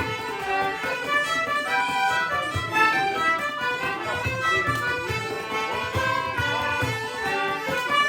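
Background music led by fiddle, with a steady low beat.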